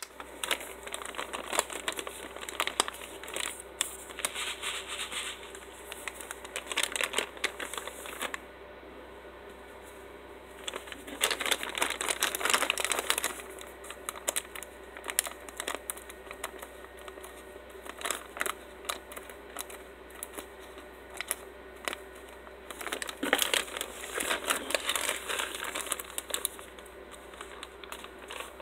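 A white plastic poly mailer bag crinkling as it is handled and cut open with scissors, in irregular rustles and snips, with a brief lull about nine seconds in.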